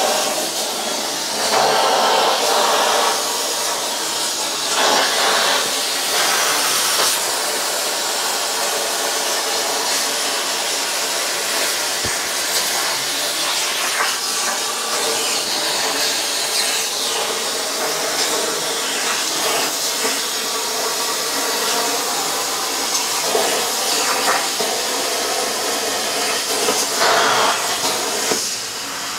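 Hynade air plasma cutter's torch cutting 14-gauge steel sheet on a CNC plasma table, a loud steady hiss as the torch traces the cut, running on 30 PSI of air. The arc cuts off near the end.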